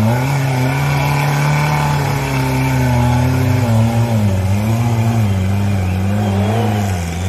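Off-road competition vehicle's engine revving in quick repeated swells, about two a second, held at a steady pitch for a few seconds in the middle, then swelling again toward the end.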